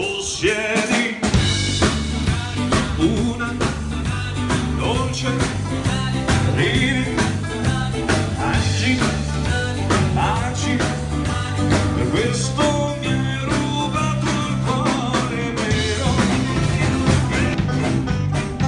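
Country band playing live: drum kit, acoustic guitars and banjo with a man singing, over a steady beat. The bass comes in about a second in.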